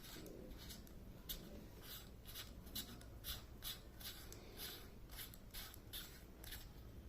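Faint, irregular light clicks and rubbing from hands working the battery housing of a Boya BY-M1 lavalier microphone while a button cell is being fitted.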